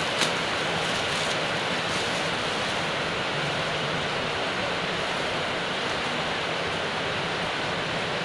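A steady hiss, with a few crinkles from a clear plastic packaging bag being pulled open in the first two seconds.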